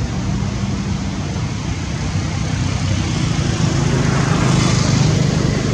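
A steady low motor drone with a constant hiss, like a vehicle engine running nearby.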